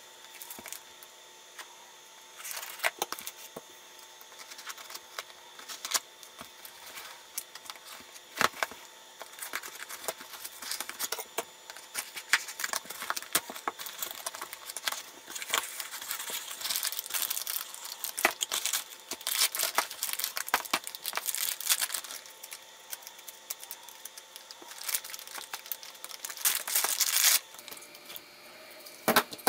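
Hands tearing open a tape-wrapped parcel and its cardboard box, then crinkling the clear plastic bags around plastic paper punches: irregular rips, rustles and sharp taps, with a long dense stretch of crinkling a couple of seconds before the end.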